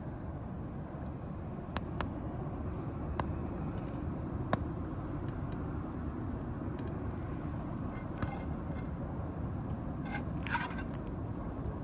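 Wood campfire burning with a steady low rumble, and a few sharp pops and crackles from the burning wood, the loudest about four and a half seconds in. Near the end comes a short burst of higher hissing crackle.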